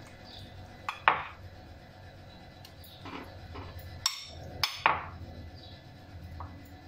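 A spoon knocking and clinking against dishware as vegetable filling is spooned into quiche pastry cases, a few sharp taps with the loudest about a second in and a cluster around four to five seconds in.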